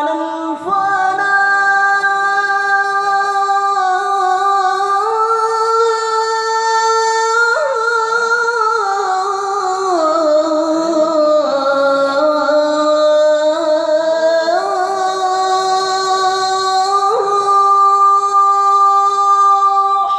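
Adhan, the Islamic call to prayer, sung by a single muezzin: one long melismatic phrase whose voice holds notes and then glides and steps between them, with a short breath about 17 seconds in.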